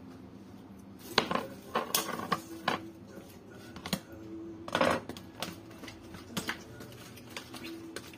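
Irregular clicks, taps and plastic crinkles as a plastic food container and a plastic bag are handled while raw chicken is seasoned, with a longer, louder crinkle about five seconds in.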